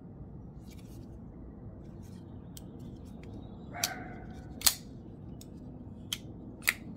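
A few sharp, irregularly spaced metallic clicks from a Kizer Kobold 2.0 folding knife being handled, the loudest a little past halfway, with a brief scrape just before it.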